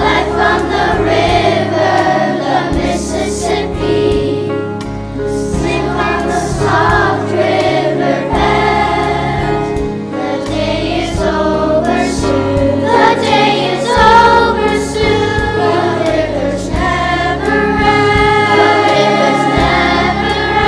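A song sung by a group of voices, choir-like, over instrumental backing with a steady, repeating bass line.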